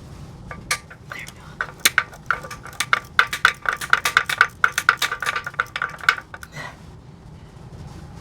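Ratchet wrench clicking in a quick run of sharp metallic clicks for about four seconds, loosening an oil pan bolt, after a few separate clicks and knocks.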